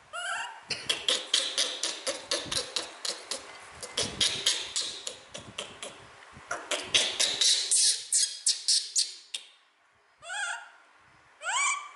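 A newborn kitten suckling at a bottle nipple, making quick wet smacking clicks several times a second, which stop near the end. Short rising mews come at the very start and twice near the end.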